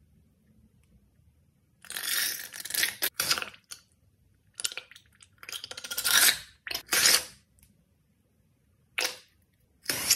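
Several bursts of wet sputtering as coloured liquid glue is squeezed out of balloons into a glass bowl, with near silence between squeezes.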